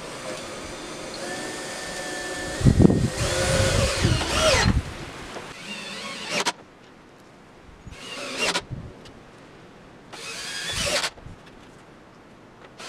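Cordless drill-driver running in bursts, driving screws into an OSB panel: one long run of several seconds with a thump near the middle of it, then two short bursts about two and a half seconds apart, each spinning up in pitch.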